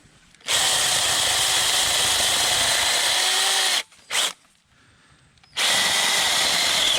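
36-volt battery-powered mini chainsaw with a 6-inch bar running under load as it cuts into a small tree trunk. It runs for about three seconds, gives a brief blip, then runs again for the last second and a half.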